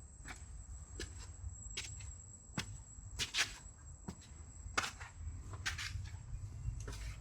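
Footsteps walking at about one step a second, with a steady high-pitched whine and a low rumble behind them.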